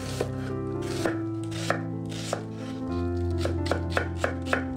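Chef's knife dicing an onion on a wooden cutting board: a string of crisp chops against the board, coming faster in the second half.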